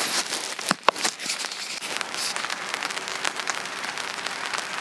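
Rain pattering on the roof of a Backcountry 280 shelter tent: a dense, steady crackle of raindrops on the fabric, the 'tadak-tadak' patter of rain on a tent. A single sharp click stands out about a second in.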